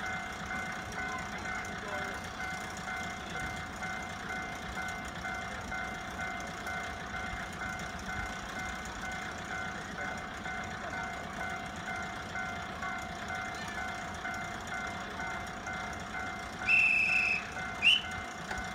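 Kiha 702 railcar idling at the platform with a steady drone and steady whining tones. About seventeen seconds in, a loud whistle blast of under a second sounds, then a second short whistle that rises in pitch, as the departure signal.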